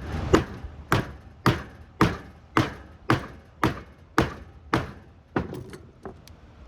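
Ten evenly spaced sharp strikes, about two a second, then a few lighter taps near the end: metal tools working into a transformer's laminated steel core to pry the layers apart.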